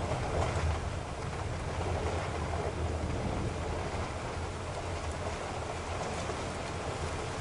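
Car driving in rain: a steady low rumble of the car on the road, with the hiss of rain and tyres on the wet surface over it.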